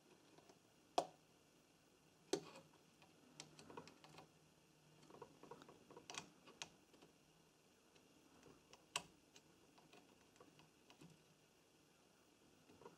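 Faint, irregular clicks and taps of multimeter test probe tips being placed on the resistor solder joints of a washing machine control board during resistance checks.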